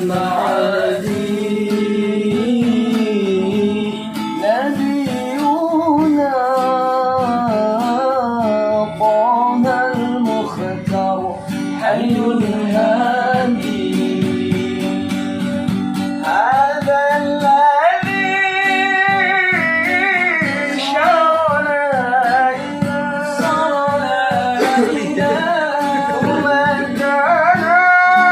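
A voice singing a sholawat, an Islamic devotional song, to acoustic guitar accompaniment, in long phrases with a melody that bends up and down.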